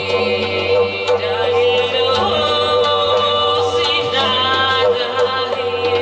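Live folk music: a woman sings a bending, wavering vocal line over a steady low drone, with a few light hand-drum strokes.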